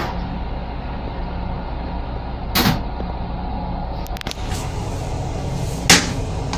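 Steady low hum and rumble of a Metro-North M8 railcar, heard inside its small restroom, with a few short knocks and clicks, the sharpest near the end.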